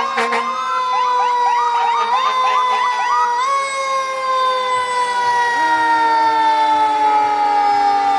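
Fire truck siren sound effect: a held siren tone slowly falling in pitch, with quick rising chirps about three times a second over the first three seconds or so. A second, lower tone joins about five and a half seconds in.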